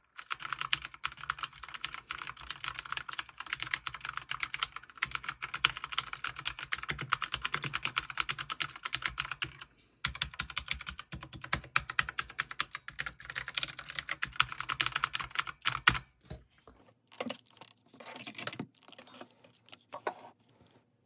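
Fast typing on an ABKO HACKER K640 keyboard: a dense stream of key clicks that stops briefly about ten seconds in, then thins out to scattered keystrokes over the last few seconds.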